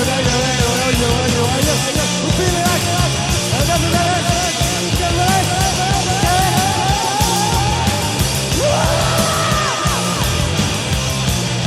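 Sludge metal band recording playing loudly: distorted guitars, bass and drums, with a wavering high lead line over them that slides up and holds a higher note about eight seconds in.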